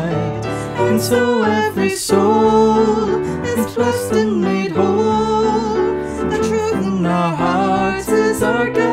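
Hymn sung with grand piano accompaniment, the voices wavering with vibrato on held notes.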